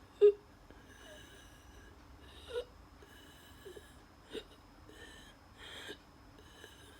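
Asthmatic wheezing: laboured breaths, each carrying thin whistling tones, repeating every second or two. A short, sharp gasp about a quarter second in is the loudest sound.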